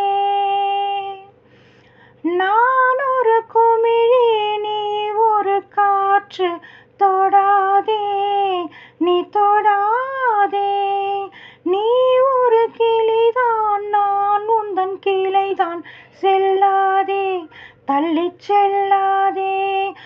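A woman's voice singing a Tamil film-song melody unaccompanied, in long held and gliding notes with short breaks between phrases and a brief pause about a second in.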